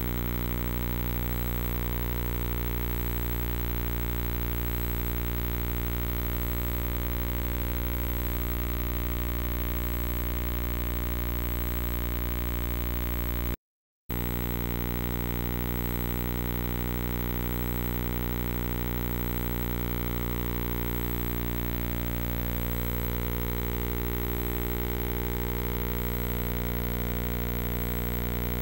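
Steady electrical hum and hiss with many evenly spaced tones, unchanging and unrelated to the play. It drops out for a moment about halfway through.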